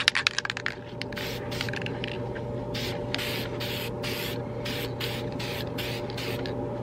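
Aerosol spray-paint can spraying black paint onto lawn mower blades: a hiss in a run of short bursts with brief breaks between them, after a few clicks in the first second.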